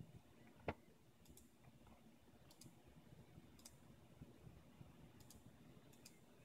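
Faint clicks of a computer mouse being operated: one sharper click a little under a second in, then light clicks mostly in quick pairs every second or so, over a very quiet room.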